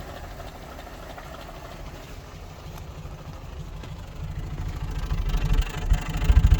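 Series III Land Rover engine running, a low pulsing exhaust note that grows clearly louder and heavier in the second half. The engine suffers from an intermittent misfire.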